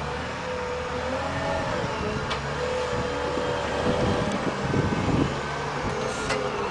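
Large Liebherr wheel loader's diesel engine running under load, with a wavering whine over the low engine note, as the machine drives carrying a heavy stone block. A louder, rough crunching noise comes about four to five seconds in.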